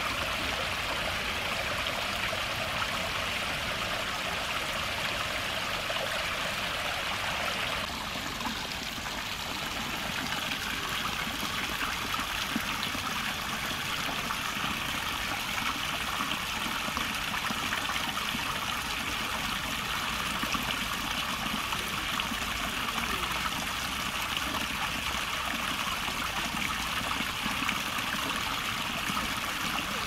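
Water of a small rocky ditch stream trickling and splashing down over mossy stones into a shallow pool, a steady rush. About eight seconds in it briefly dips and then runs on slightly softer.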